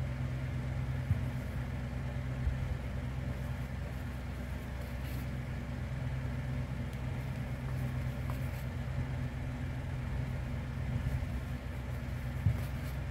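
Steady low hum, with a few faint light taps about a second in, near two and a half seconds, and near the end.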